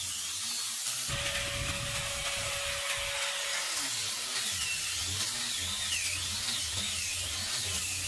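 Corded electric angle grinder with a sanding disc sanding bare wooden boards. Its motor whine wavers up and down in pitch as the disc is pressed into the wood and eased off.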